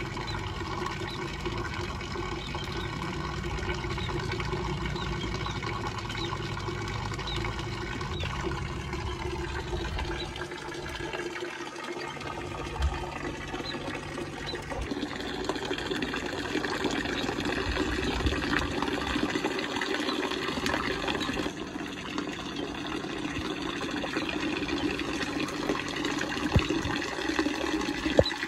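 Water pouring and splashing steadily into a small basin, with a couple of short knocks in the second half.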